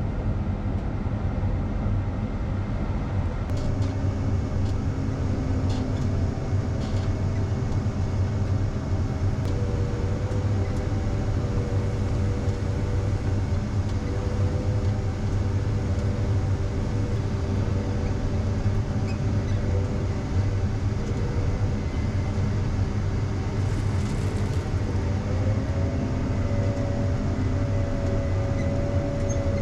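Tractor engine running steadily under load, with a steady mechanical whine that rises slightly in pitch near the end.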